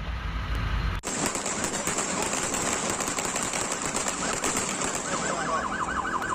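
Police siren in a fast up-and-down yelp, starting about five seconds in, over dense crackling street noise picked up by a phone's microphone.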